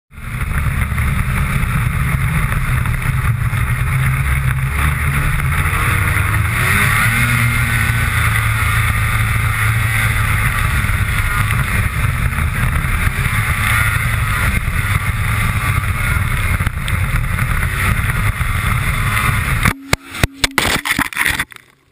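Snowmobile engine running at speed, heard close up from a camera stuck to the sled's hood. Near the end a short series of sharp knocks and cut-outs as the sled's ski hits a stump and the jolt tears the camera off its mount.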